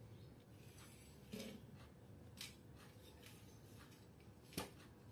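Near silence: faint room tone with three soft clicks of a hand handling a microphone cable and its 3.5 mm plug.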